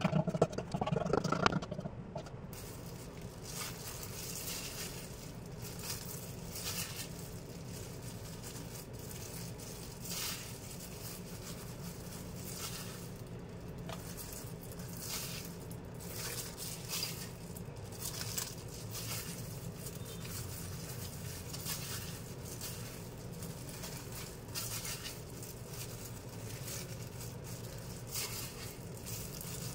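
Faint kitchen handling noise over a steady low hum: a brief louder scraping and pouring from a stainless steel bowl in the first couple of seconds, then scattered soft crinkles and light taps of a plastic-gloved hand and foil-lined pan.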